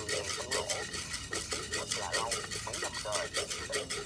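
Coffee beans being stirred with a wooden spatula in a round-bottom cast iron pot: quick repeated scraping and rattling strokes, several a second. The beans are early in the roast, around 136 °C, well before first crack.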